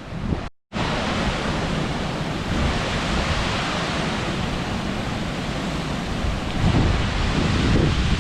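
Strong wind blowing and buffeting the microphone, a dense rushing hiss with low rumbling gusts that swell near the end. The sound cuts out completely for a fraction of a second about half a second in, then returns louder.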